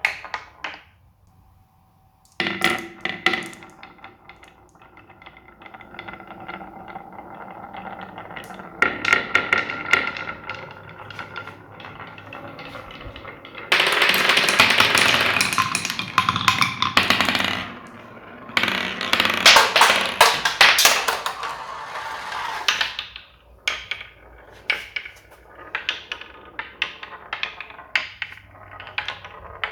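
Marbles rolling and clacking down a block-built marble run track, a stream of quick clicks and rattles. Two long spells of thick clattering come about midway, when many marbles run together, and the clicks thin out to separate knocks near the end.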